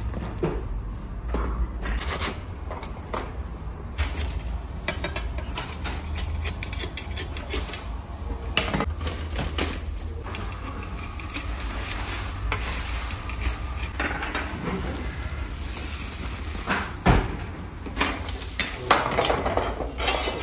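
A long-handled wire basket scoop clinking and scraping against a clay tandoor and a metal rack as baked tandoor samosas are lifted out and tipped onto the rack. Irregular clinks and knocks come one after another, over a steady low rumble, with the sharpest knocks near the end.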